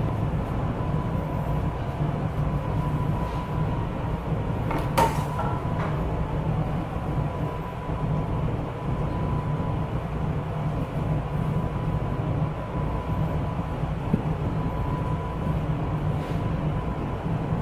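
Steady low mechanical drone of commercial kitchen equipment, with a faint high whine running through it and one sharp click about five seconds in.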